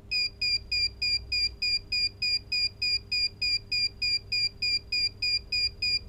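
VETUS BowPro thruster control panel beeping while its on-off button is held down to enter configuration mode: a steady train of short, high electronic beeps, about three a second.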